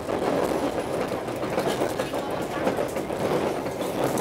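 Running noise of the Argo Parahyangan passenger train heard from inside a carriage: a steady rumble of wheels on the rails with scattered light clicks.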